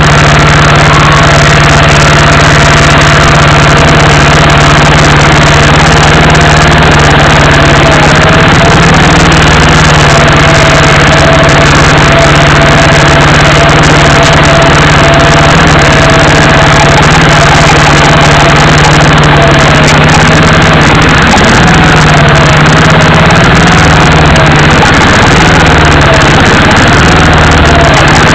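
Off-road vehicle engine running steadily at low speed, loud and distorted on the microphone. A faint whine wavers in pitch through the second half.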